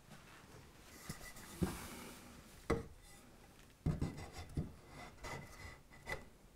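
Light wooden knocks and rubbing as a timber support leg is fitted and shifted into place under a plywood baseboard: a handful of scattered knocks over quiet scraping.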